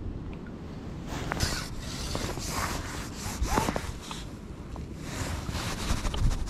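Wind buffeting the microphone, with a run of rustling and scraping from clothing and tackle being handled, starting about a second in.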